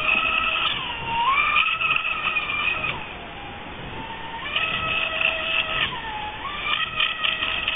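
Kukorelli Merlin Eco radio-controlled model speedboat's motor whining at speed across the water. The high pitch dips and comes back up twice, and the whine fades for about a second and a half in the middle before returning.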